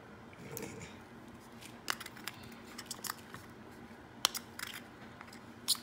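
A spoon scraping out a container of sour cream: a scatter of sharp clicks and knocks as the spoon hits the container.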